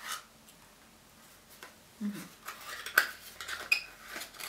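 A plastic cosmetics tube being handled: soft rustling and a few sharp plastic clicks, the loudest about three seconds in.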